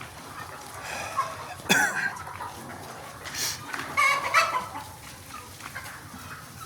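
A flock of Sonali desi chickens clucking and calling, with louder calls about two seconds in and again around four seconds.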